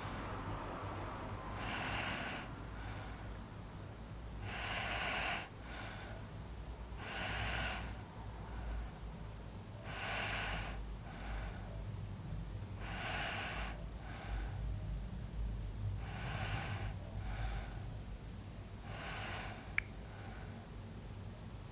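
A sleeping person snoring: a loud, noisy breath about every three seconds, each followed by a shorter, fainter one. A single sharp click comes about 20 seconds in.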